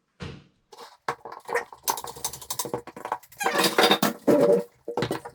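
Two clamps being set and tightened on a template on the workbench: an irregular run of clicks, knocks and rattles, busiest about two seconds in and again towards the end.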